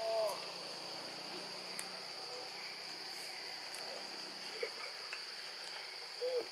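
Steady, high-pitched drone of an insect chorus in forest trees. A short call that rises and falls sounds right at the start, and another near the end.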